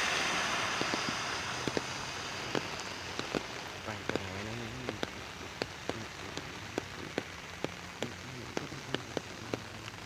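Rain falling on an umbrella: a dense hiss that eases over the first few seconds, leaving separate drops tapping sharply on the canopy, a few each second.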